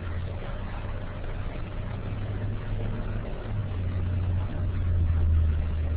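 Steady low hum with background hiss on a teleconference line, the hum growing a little stronger in the second half.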